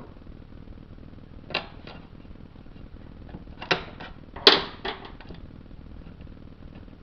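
A handful of short, sharp clicks and clatters, loudest about four and a half seconds in: small hand tools and bolts being handled while fitting a transmission pan.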